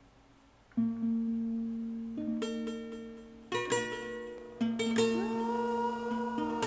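Music on a plucked string instrument like a guitar, starting about a second in with ringing notes and a few struck chords. After about five seconds a held note slides up in pitch and sustains.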